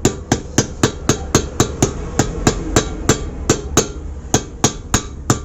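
Light, evenly spaced hammer taps, about four a second, driving a new bearing into the engine case of a Hero Glamour motorcycle, struck gently all around so that it seats.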